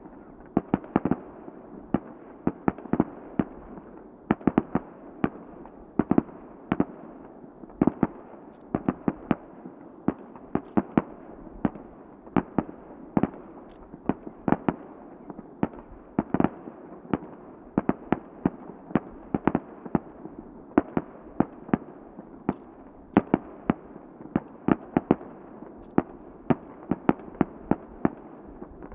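Aerial fireworks bursting in quick, irregular succession: sharp bangs, often several a second, over a continuous rumbling haze.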